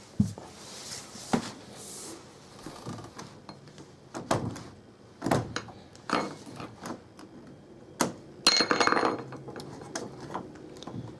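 A sliding door's damaged plastic wheel unit being pried out of the bottom of the door with a screw: scattered sharp knocks, clicks and scrapes, with a longer clattering rattle about three-quarters of the way through.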